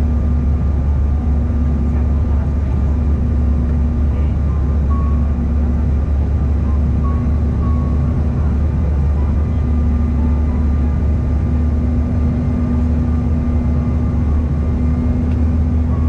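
Steady drone of a Bombardier CRJ-1000's rear-mounted turbofan engines heard inside the passenger cabin: a deep constant hum with a thin steady whine above it.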